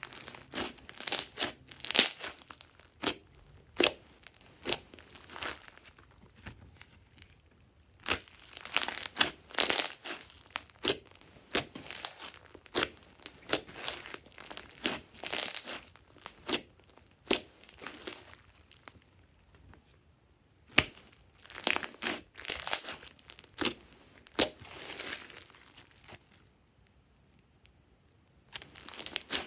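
Hands squeezing, folding and stretching thick purple slime mixed with small foam beads: clusters of wet crackling and popping clicks, with a few pauses of a second or two between handfuls.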